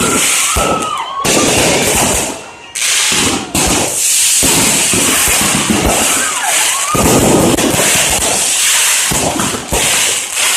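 Aerial fireworks going off in quick succession: a dense string of bangs over continuous crackling, with brief lulls a few seconds in.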